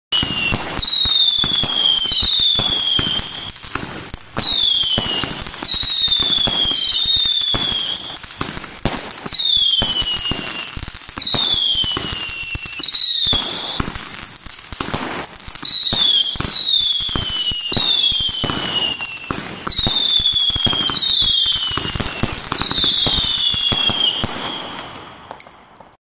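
Fireworks going off: a long run of whistling shots, each a shrill whistle falling in pitch, about one every second, over constant crackling and sharp bangs. The firing thins out and fades near the end.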